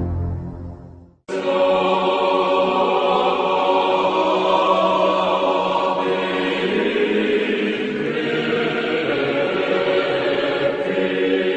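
Background music fades out over about a second, then a choir starts suddenly, singing slow held chords in a chant-like style.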